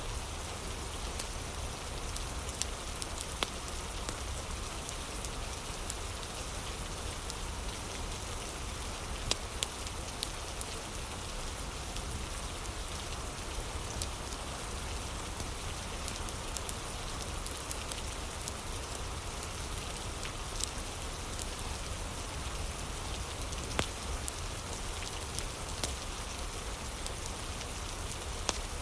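Steady rain falling, with scattered sharp clicks and pops now and then.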